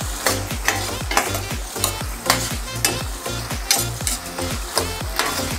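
Diced pork sizzling in a stainless steel pot as its fat renders out into cooking oil. A metal spoon stirs it, scraping and knocking against the pan about twice a second.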